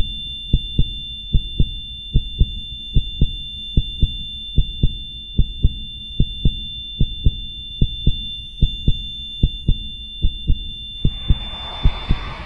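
Heartbeat sound effect: low double thumps in a steady rhythm, about 75 beats a minute, under a thin, high, steady tone. Near the end the tone stops and a rushing noise comes in.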